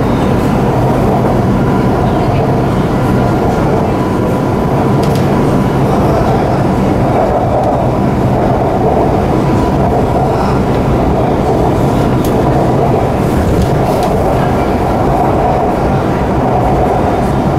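Shanghai Metro Line 9 train running on elevated track, heard from inside the car: a steady, even noise of wheels on rails, with a thin steady tone on top.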